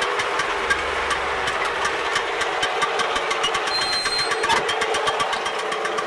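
Tractor engine running steadily under load, heard from the cab, while it drives a Wirax 1.65 drum mower cutting grass on a test run after repair. A fast, even ticking runs over the engine sound.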